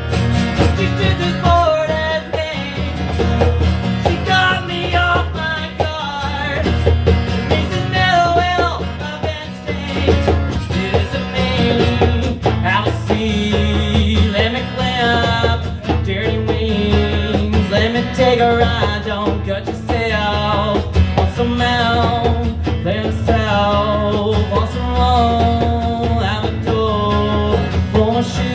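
Live acoustic music in a country style: an acoustic guitar strummed along with a djembe hand drum keeping the beat, with singing over it.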